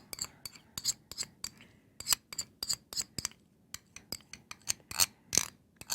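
A kitchen utensil clicking and scraping against a container: a quick, irregular series of sharp clicks and light scrapes, about three or four a second.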